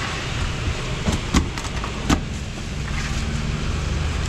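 The low hum of an engine running close by, which settles into a steady drone about halfway through, over a constant outdoor hiss. A few sharp clacks come in the first half.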